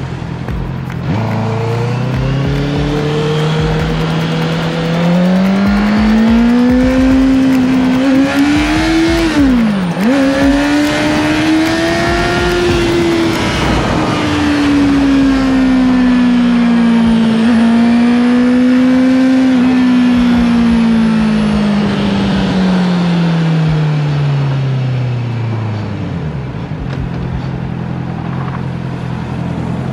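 Motorcycle engine accelerating hard, its pitch climbing, with a quick drop and recovery about ten seconds in like a gear change. It holds a high, steady pitch at speed, then winds down steadily as the throttle is rolled off.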